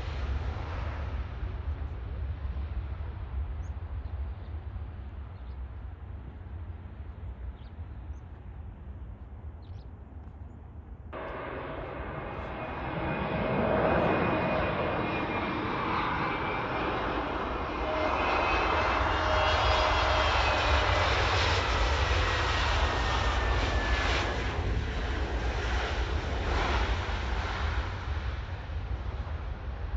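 Jet airliner's engines passing close by: the noise starts abruptly about eleven seconds in and stays loud, with whining engine tones falling slowly in pitch as it goes by. A low wind rumble on the microphone runs underneath.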